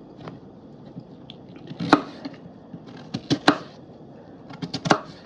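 Knife chopping peeled potatoes into small cubes on a cutting board: irregular sharp knocks, some single and some in quick clusters of two or three.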